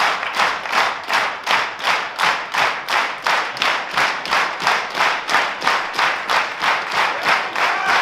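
Spectators clapping together in a steady rhythm, about three claps a second, cheering on the grapplers.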